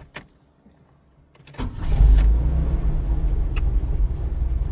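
Holden VH Commodore engine being restarted: a couple of clicks, then about a second and a half in it cranks briefly, catches and settles into a steady idle.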